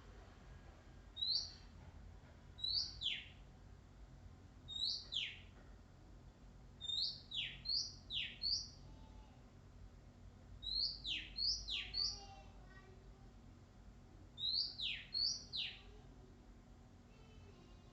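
Oriental magpie-robin singing: clear whistled notes in short phrases of one to four, each note a quick upslur followed by a steep down-slurred whistle, with a pause of a second or two between phrases.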